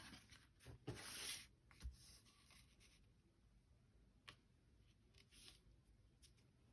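Quiet paper handling as scrapbook paper is glued down: a short rustle about a second in, then a few faint taps and rustles.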